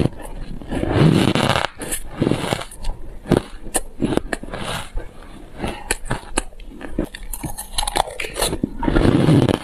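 Close-miked chewing and crunching of crumbly, frosty ice: a rapid series of sharp crackles as the ice breaks between the teeth, with louder bites about a second in and near the end.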